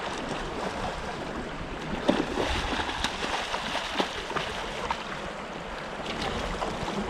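Surf washing at the shoreline with a hooked bluefish thrashing and splashing at the surface; short sharp splashes stand out about two, three and four seconds in.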